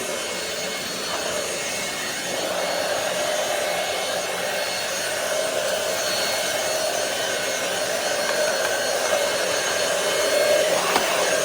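Roomie Tec SlimVac cordless stick vacuum running: a steady motor whine over rushing airflow, its pitch wavering slightly as it is worked across the floor. A brief sharp click comes near the end.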